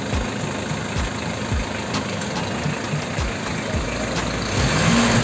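Mitsubishi L300 van's engine running at low speed as the van creeps forward, with a low pulsing about twice a second; it gets a little louder near the end.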